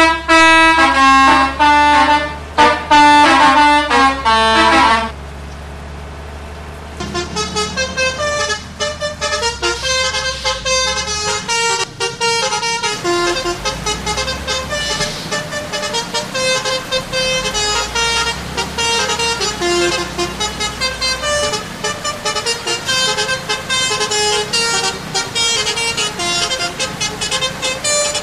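Bus telolet horn, a set of electric multi-tone horns playing quick stepping melodies over a low engine hum. The horn stops for about two seconds around five seconds in, then starts again with faster, denser runs of notes.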